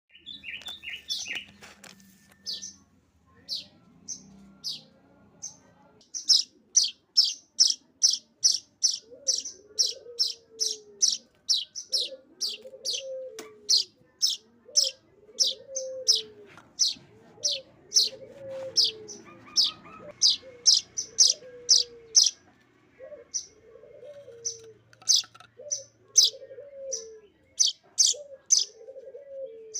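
Streaked weaver chicks begging for food while being fed, giving rapid, sharp, high chirps, up to about three a second, with short pauses between runs.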